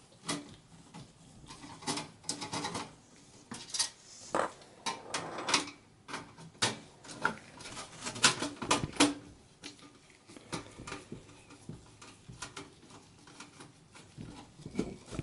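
Phillips screwdriver backing out the rear system fan screws from the sheet-metal chassis of an HP Pro 3500 computer case: irregular metallic clicks and short scrapes.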